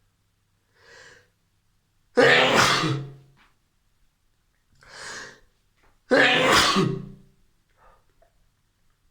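A person sneezing twice, about four seconds apart. Each loud, voiced sneeze comes about a second after a short in-breath.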